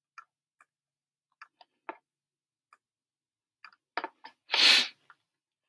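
Faint, scattered small clicks while drawing on a computer, then two sharper clicks about four seconds in, followed by a short breathy noise close to the microphone, the loudest sound.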